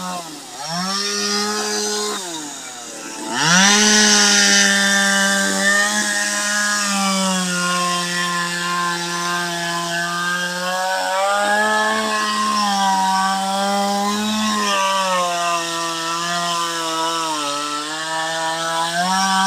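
Two-stroke chainsaw carving into a log: the engine speed drops twice as the throttle is eased off, then rises sharply about three and a half seconds in as the chain bites, and it keeps running at high speed with the pitch wavering as the cut goes on.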